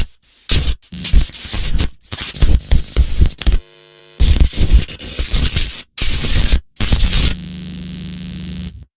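Loud, harsh glitching static that keeps cutting in and out abruptly. It gives way to a brief buzzy tone around four seconds in and to a steady hum near the end, then cuts off suddenly.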